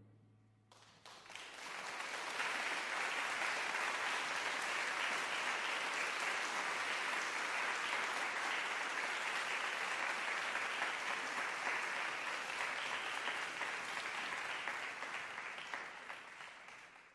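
Audience applauding after a percussion piece. The last ringing note of the percussion dies away at the start, the applause comes in about a second in, holds steady, and fades out near the end.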